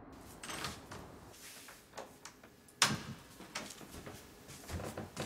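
A door being handled and shut: light clicks and knocks, with one sharp knock about three seconds in.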